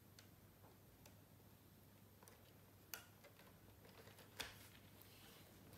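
Near silence with a few faint clicks and taps, the clearest about three seconds in and just after four seconds: hands handling pieces on a model railway layout.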